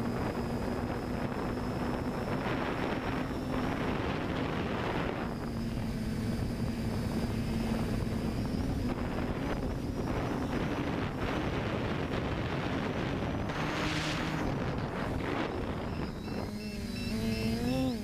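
An FPV drone's electric motors and propellers hum steadily, picked up by its onboard camera, with wind rushing over the microphone. The motor note shifts near the end.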